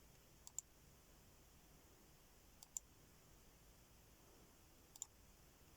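Near silence broken by three brief double clicks, about two seconds apart.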